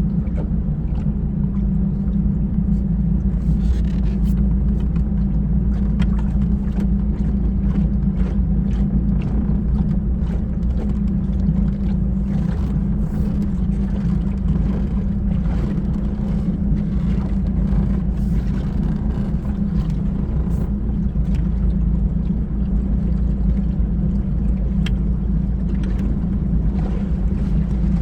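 The 1991 Sea Ray's four-cylinder engine idling steadily without stalling, freshly tuned with a rebuilt carburettor and adjusted points and timing.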